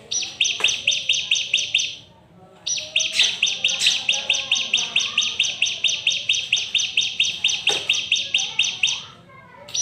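Bar-winged prinia (ciblek) singing: a rapid, even string of high chirps, about six a second. A short phrase comes first, then a brief pause and a long phrase that stops near the end. The song is the one this bird keeper is after, a bird singing often (gacor).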